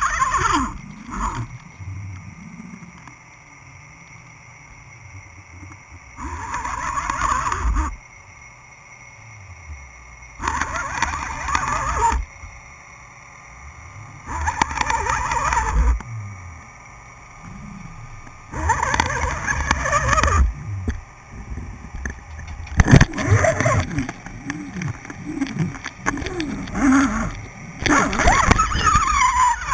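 Muffled rushing of water past an underwater camera housing, coming in surges about every four seconds, each lasting a second or two, with low rumbling in between.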